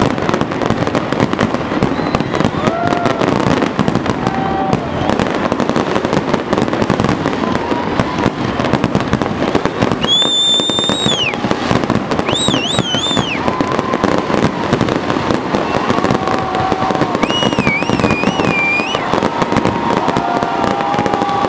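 Fireworks display: a dense, continuous barrage of bangs and crackling bursts. Voices in the watching crowd sound faintly under it, and three high whistles rise over it in the second half, the later two wavering in pitch.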